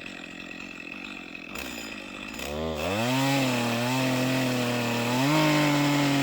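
Chainsaw running low, then throttled up about two and a half seconds in and held at high revs as it cuts into the tree, climbing a little higher again near the end.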